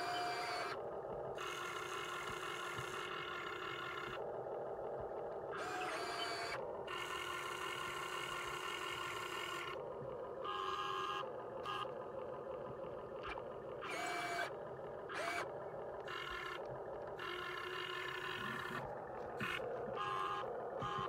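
Small electric motors of a radio-controlled model excavator whining as its functions run, the pitch stepping and cutting in and out every second or two as different motions start and stop.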